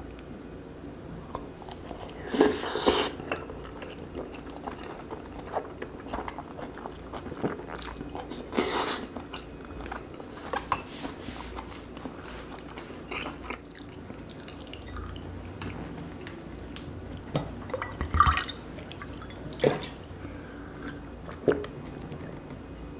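Close-miked wet chewing and mouth sounds of someone eating braised pork kimchi stew with rice: soft clicks and smacks throughout, with a few louder wet bites or slurps scattered among them.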